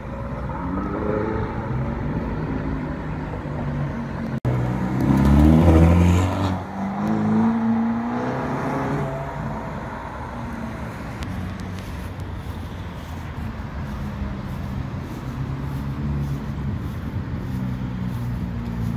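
Performance car engines accelerating on a city street, the pitch rising as they rev. The loudest run comes about five to six seconds in, followed by a steadier engine drone with traffic.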